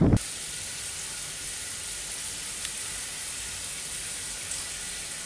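Wind buffeting the microphone cuts off abruptly just after the start. After that there is a steady, even high hiss with a faint thin whistle-like tone in it.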